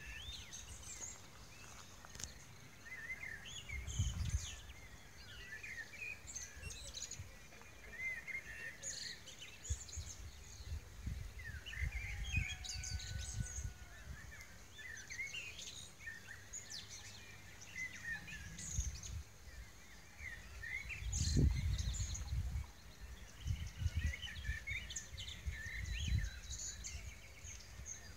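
Several birds singing and chirping in short, overlapping phrases, over an outdoor background. Intermittent low rumbles come and go, the strongest about three-quarters of the way in.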